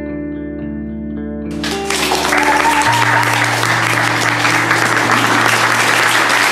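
Guitar-led background music, joined about a second and a half in by audience applause that quickly grows and becomes the loudest sound while the music's low notes hold underneath.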